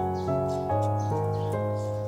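Background music: sustained chords over a steady bass line, the notes changing about every half second.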